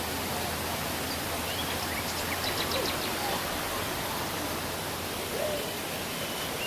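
Steady rushing of a waterfall, an even roar of falling water, with a few faint bird chirps about two and a half seconds in.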